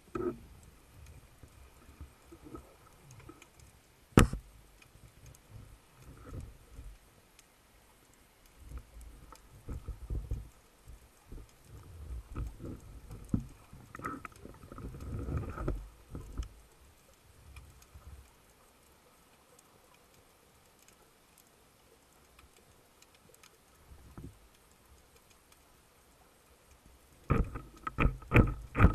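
Underwater handling noise picked up by a speargun-mounted camera: scattered low knocks and rustling as the gun and diver move through the water, a single sharp click about four seconds in, then a quick run of knocks near the end.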